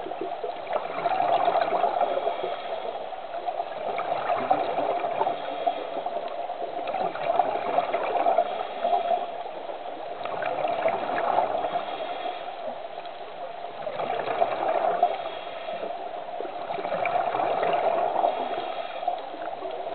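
Water sloshing and gurgling picked up by a camera underwater, swelling and fading every three to four seconds.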